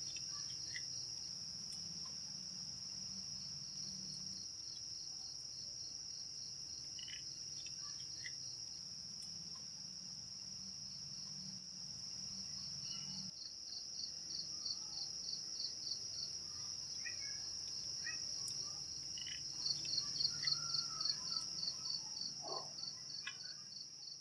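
Night insects, crickets, chirring in a steady high-pitched drone, which turns into a louder, rapid pulsing about three-quarters of the way through; a few faint, brief chirps sound over it.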